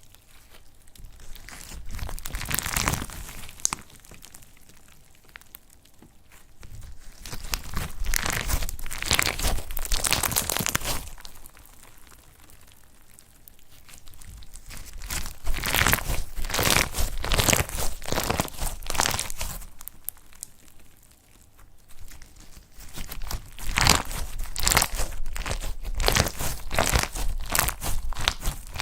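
Slime being squeezed and worked by hand, making crackling, crinkling pops in four bouts of a few seconds each, with quieter pauses between.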